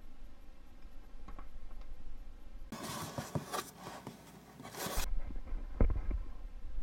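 Thin metal scraper forced under the cured resin base of a freshly printed SLA part, prying it off the Form 1's metal build platform: a rough scraping rasp of about two seconds starting near the middle, followed by a few knocks.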